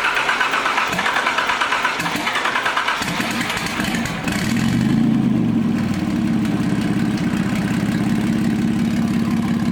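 Freshly installed Nissan VG30ET turbocharged 3.0 V6 in a Z31 300ZX being started: the starter cranks for about four seconds, then the engine catches, rises briefly and settles into a steady idle.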